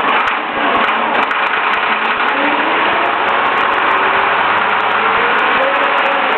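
Leyland National single-deck bus running on the road with its replacement engine, a loud steady din of engine and road noise. The engine note climbs slowly more than once.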